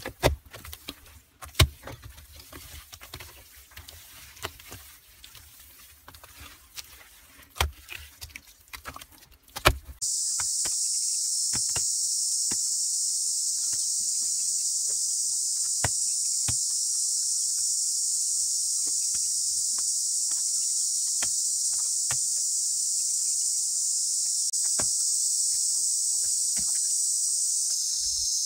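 Wet mud slapped and smoothed by hand onto earthen pit walls: scattered slaps and scrapes. About ten seconds in, a loud, steady, high-pitched insect drone starts suddenly and carries on, with occasional faint clicks under it.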